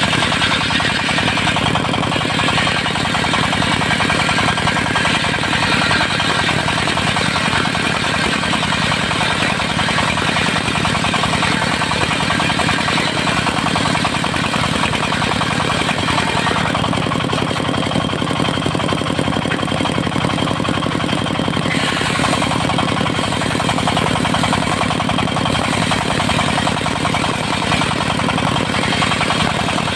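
Engine of a portable circular-saw sawmill running steadily. Its sound turns duller for several seconds past the middle.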